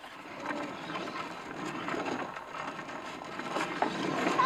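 Plastic Sit 'n Spin toy spinning, its turntable whirring and scraping steadily, growing louder toward the end as it turns faster.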